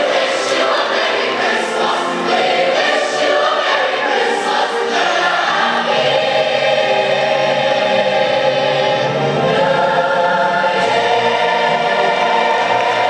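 A choir singing, with long held chords in the second half.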